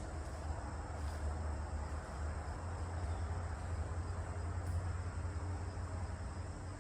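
Quiet woodland ambience: a steady low rumble with faint, steady insect chirring high above it, which may be crickets. No crash or impact is heard.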